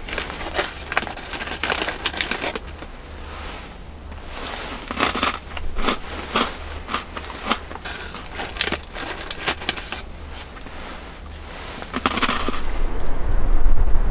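Plastic snack wrapper crinkling and crackling in irregular bursts as it is handled. A low rumble comes in near the end.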